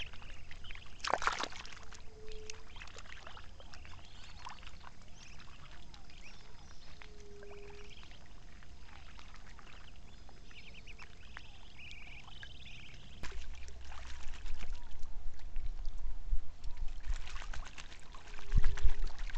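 Birds chirping and calling over lapping water, with a splash about a second in and a few short low hoots. In the last third a low rumble and splashing grow much louder.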